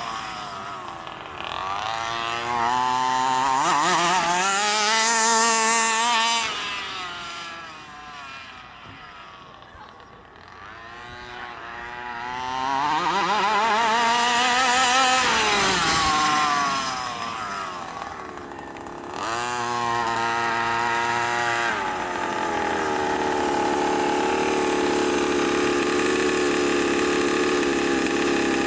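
27cc two-stroke gas engine of an FG RC monster truck, revving up and falling back in three long runs, then settling into a steady idle for the last several seconds.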